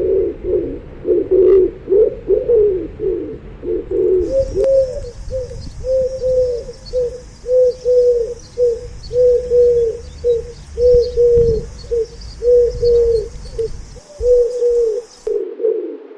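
Pigeons cooing. A jumble of overlapping coos, then from about four seconds in a steady run of short coos, roughly three every two seconds.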